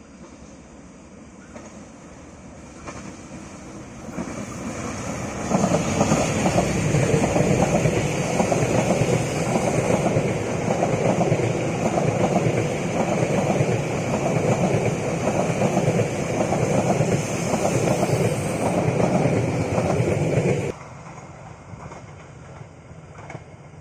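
Diesel-hauled passenger train passing close by on curved track, its wheels rumbling and clattering over the rails. It grows louder over the first few seconds and stays loud. Near the end it drops off suddenly to a faint distant rumble.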